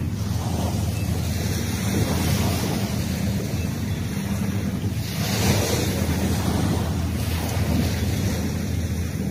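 Ocean surf breaking and washing up the beach, with wind rumbling on the microphone. The surf swells louder about half a second in and again around five to six seconds in.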